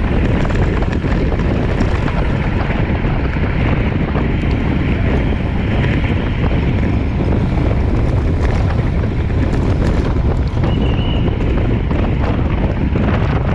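Wind buffeting the microphone of a camera on a road bike ridden at speed: a loud, steady rumble that does not let up.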